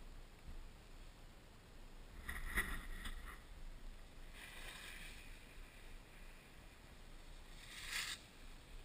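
Skis swishing and scraping on packed snow as skiers pass close by, three times: a loud pass a couple of seconds in, a softer one about halfway, and a short one near the end. A faint low wind rumble runs underneath.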